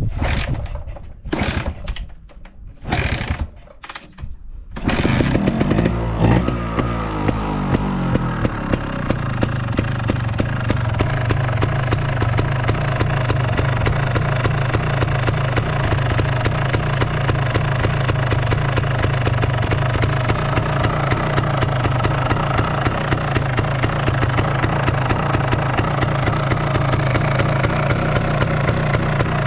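Honda TLM220R trials bike's single-cylinder two-stroke engine, breathing through a TOM'S silencer, being started. It gives several short bursts over the first few seconds and catches about five seconds in. The revs fall over the next few seconds, then it idles steadily with a regular pulse and no abnormal noise.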